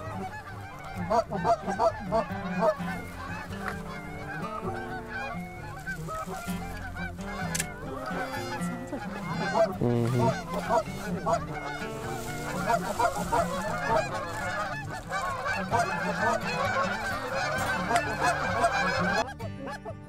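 A large flock of Canada geese honking in flight: a dense chorus of many overlapping calls that cuts off suddenly near the end.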